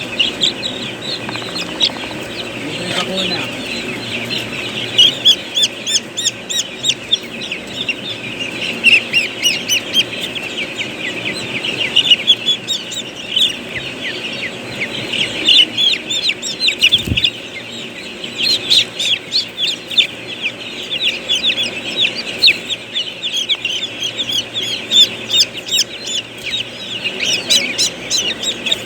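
A brood of chicks peeping continuously, many rapid high-pitched falling peeps overlapping. A single brief knock about seventeen seconds in.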